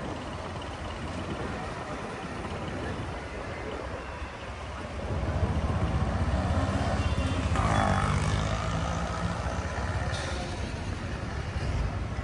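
Diesel bus engine running close by, its low rumble growing louder about five seconds in as the bus drives past, over general street noise.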